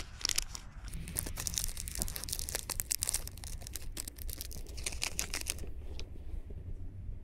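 Crinkling and rustling of a plastic lure packet being handled as a jig is taken out, in rapid irregular crackles that stop about six seconds in.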